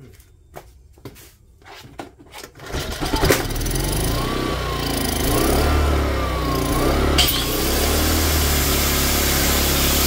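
Craftsman portable inverter generator's small engine started: a few clicks and knocks, then it catches about three seconds in and runs steadily. Its pitch wavers for a few seconds after it catches, and there is a sharp click about seven seconds in.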